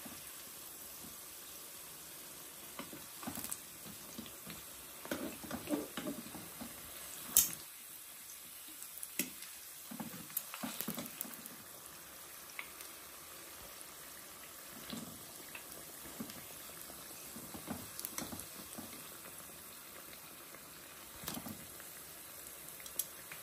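Batter-coated raw banana fritters deep-frying in hot oil: a steady sizzle with bubbling. Metal tongs and a spatula tap and scrape the pot and fritters now and then, with one sharp click about seven seconds in.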